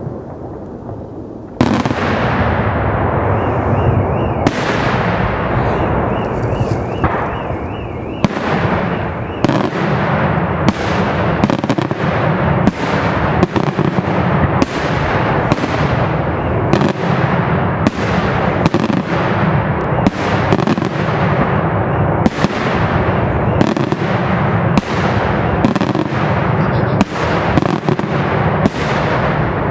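Daytime fireworks display: aerial shells bursting overhead with sharp bangs. After a fading rumble, they start suddenly about a second and a half in and follow one another at one to two a second over a continuous echoing rumble.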